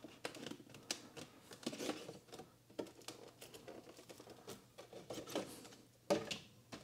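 Thin clear plastic slip cover crinkling and rustling as it is slid off a cardboard toy box, in a run of small light crackles. A louder handling knock comes about six seconds in.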